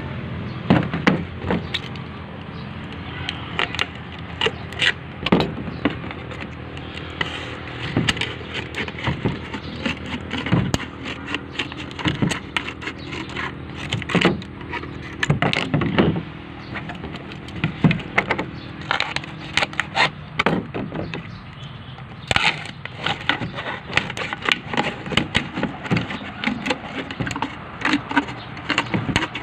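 Scissors cutting through a thin, clear plastic drink bottle. The blades snip and the plastic crackles and crinkles in irregular sharp clicks as the cut is worked around the bottle.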